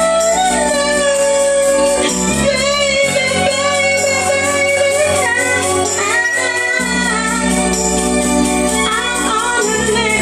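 A woman singing into a handheld microphone over an instrumental backing track, with long held notes over sustained keyboard-like chords and bass that change every few seconds.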